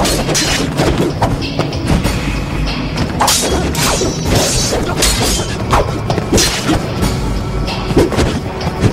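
Martial-arts film fight soundtrack: a music score under a rapid string of sharp hits and swishes from the blows.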